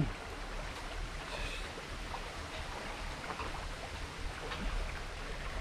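Shallow creek water running steadily over a low concrete weir and rocks.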